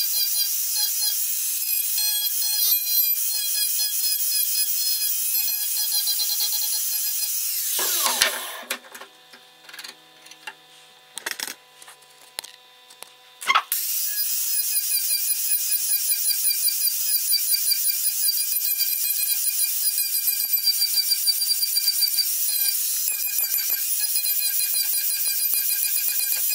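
Angle grinder with an abrasive disc grinding a wooden axe handle: a steady high-pitched whine with a rasp against the wood. About eight seconds in it winds down and stops, leaving a pause of about five seconds with a few knocks, then it spins up again and grinds on.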